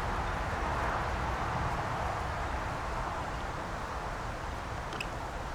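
Steady outdoor background noise: an even hiss with a low rumble underneath, and a faint tick near the end.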